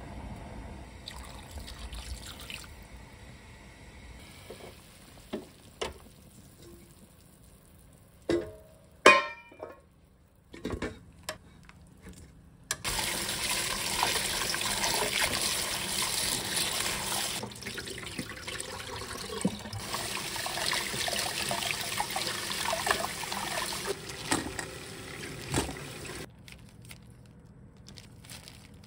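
Kitchen tap running into a stainless-steel bowl while boiled pork ribs are rinsed and rubbed clean by hand under the stream. It starts just before halfway, runs about thirteen seconds and then cuts off. Before it come a few sharp knocks.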